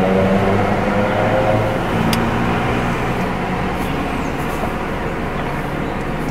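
Steady vehicle rumble and hiss heard from inside a car, with a low droning hum that fades away over the first three seconds. A single short tick about two seconds in.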